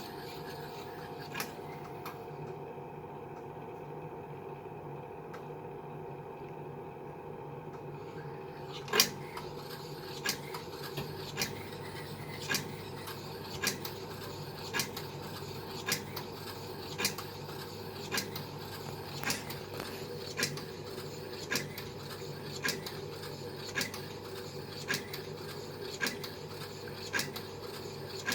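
Beko laundry appliance humming steadily while giving off a sharp click. After one louder click about a third of the way in, the clicks repeat regularly, a little slower than once a second. This is the strange noise the machine is making.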